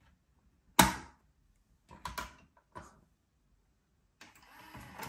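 Plastic cassette door of a Technics RS-TR474M2 deck snapping in with one sharp click under a hand, followed by a few lighter clicks of the mechanism and buttons. About four seconds in, the deck's powered door mechanism starts running with a steady whir.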